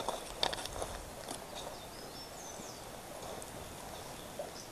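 A few footsteps on dry ground and brush in the first second or so, then a short high bird chirp in the middle over faint outdoor background.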